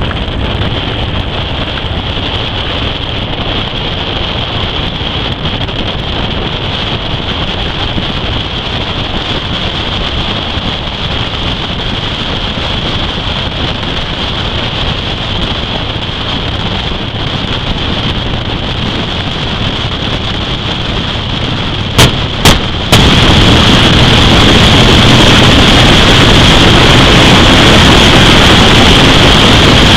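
Steady rushing wind noise on the microphone of a camera riding on a moving vehicle. About 22 seconds in come two short knocks, and then the rushing jumps louder and stays that way.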